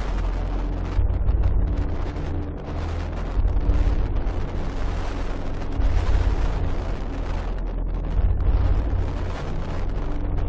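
Strong wind buffeting the microphone in gusts, a heavy rumble that swells and eases every second or two, over the steady hiss of rough sea and surf.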